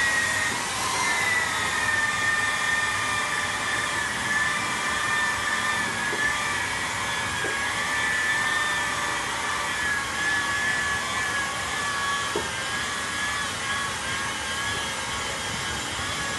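Handheld electric rotary polisher with a Velcro floor-buffing pad scrubbing copper sheet, a steady high whine whose pitch wavers slightly as the pad is pressed and moved. It is buffing the last stains off the copper after chemical brightening.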